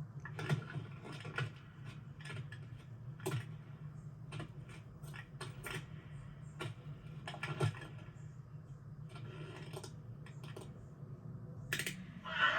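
Film sound-effects track: irregular dry clicks and taps, several a second and unevenly spaced, over a steady low hum.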